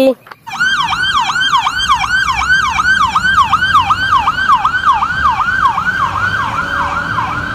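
Police car siren in a fast yelp, its pitch sweeping up and down about four times a second, starting about half a second in, over a low rumble.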